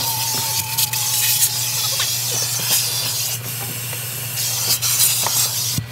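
Car wash vacuum hose running: a steady rushing hiss of suction over a low motor hum. The hiss drops away for about a second midway, then returns.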